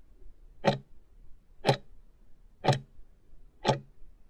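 Countdown-timer sound effect: a clock tick once a second, four ticks, marking the last seconds of the answer time running out.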